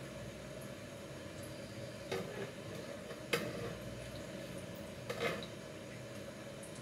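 A metal utensil clinking against a glass bowl of beaten eggs: three brief clinks a second or two apart, over a steady background hum.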